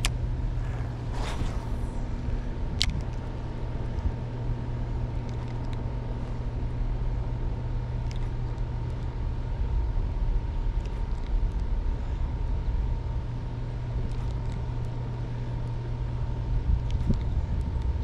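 Bow-mounted electric trolling motor humming steadily, with a thin high whine, over the rush of river water. A single sharp click comes about three seconds in.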